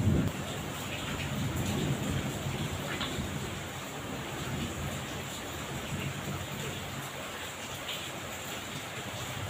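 Heavy tropical rain pouring steadily onto a yard. A low rumble of thunder dies away in the first second.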